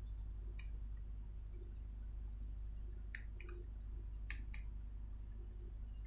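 About five faint, separate computer mouse clicks over a steady low hum.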